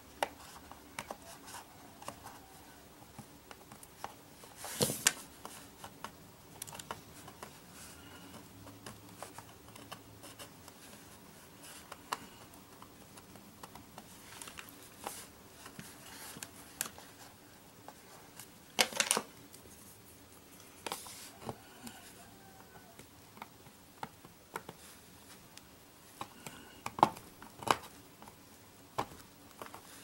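Small screwdriver tip and plastic pry tool scraping and clicking against the laptop's plastic bottom case as the adhesive rubber foot strip is pried up and peeled off. Scattered light ticks and scrapes, with a few louder sharp clicks spread through.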